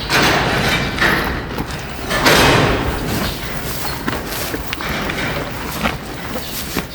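Hanwoo cow eating rice straw: dry straw rustling and crunching in irregular bursts as she pulls at it and chews, loudest in the first half, with a few sharp snaps near the end.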